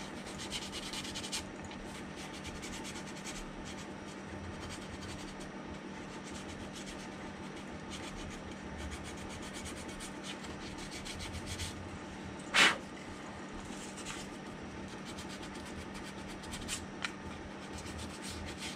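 Sandpaper rubbed back and forth by hand over filler putty on the seams of a plastic model hull, a steady scratchy rasp of quick strokes. A single sharp click about twelve and a half seconds in.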